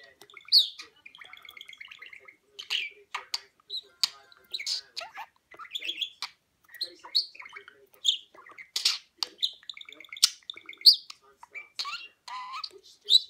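Budgerigar chattering: a continuous, irregular string of short high chirps and warbling squeaks.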